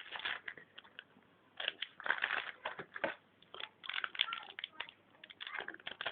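Yu-Gi-Oh booster pack and its cards being handled: irregular crinkling and rustling of the foil wrapper and card stock, in short clusters of crackles.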